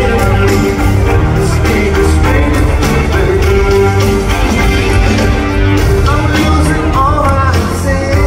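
A live pop-rock band playing, with electric guitars, bass, keyboards and drums and a sung lead vocal, heard loud from among the audience.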